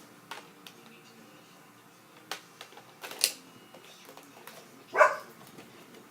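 Hard plastic clicks and clacks of a Nerf blaster attachment being fitted and handled: a few scattered sharp clicks, the loudest about three and five seconds in.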